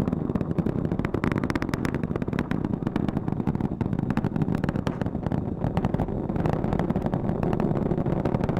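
Space Launch System rocket in flight, its two solid rocket boosters and four RS-25 core stage engines heard from the ground as a steady low rumble with dense crackling, the core engines throttled down through max Q.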